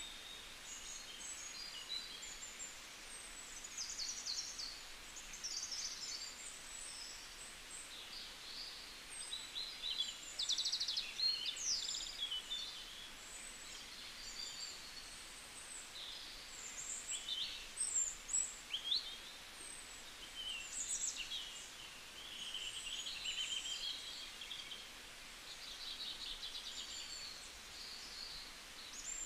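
Small birds chirping and trilling: a busy, overlapping run of short high calls, quick pitch slides and rapid trills.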